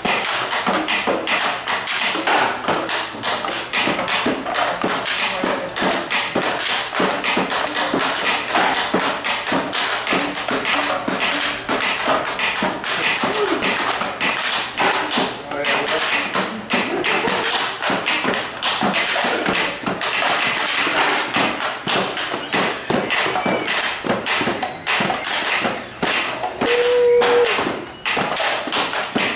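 Homemade rubber-band box instruments, cardboard boxes strung with rubber bands, plucked and tapped by hand in a fast, dense rhythmic jam, with voices underneath.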